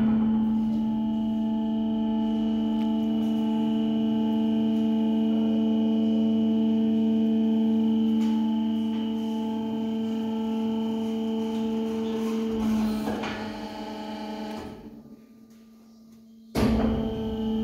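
Laska ME-400 Z-arm mixer's bowl-tilt drive humming steadily as the bowl tips forward, cutting out about fifteen seconds in; the machine starts again suddenly near the end.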